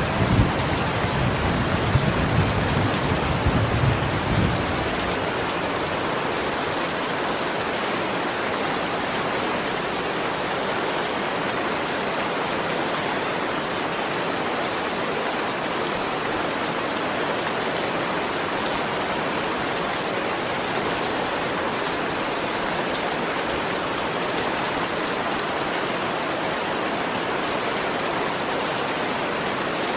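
Steady heavy rain falling, an even hiss. A low rumble runs underneath for the first few seconds and fades out about four seconds in.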